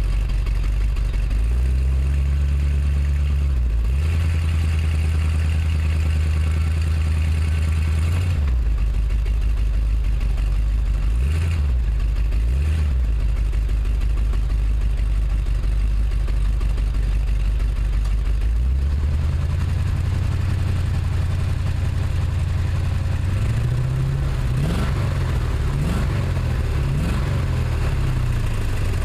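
Chevrolet 350 small-block V8 in a 1979 Chevy truck running with a nagging misfire. Engine speed steps up and down several times, with two short throttle blips about a third of the way in and a wavering pitch near the end.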